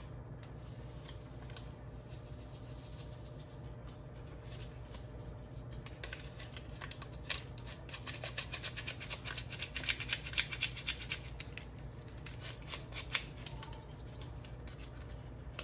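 Quiet crinkling and rustling of a paper yeast packet as rapid rise yeast is shaken and sprinkled into a steel bowl of water, with a dense run of fine crisp ticks in the middle, over a steady low hum.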